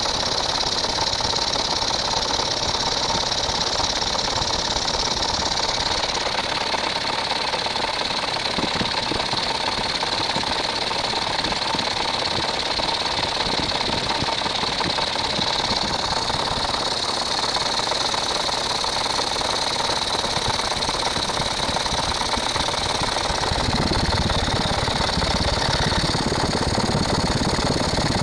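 An electric bench grinder's motor spinning a belt-driven single-cylinder engine over at about 1000 RPM, unfired, with its head off and a ringless piston. A steady, fast mechanical running clatter that gets heavier in the low end about 24 seconds in.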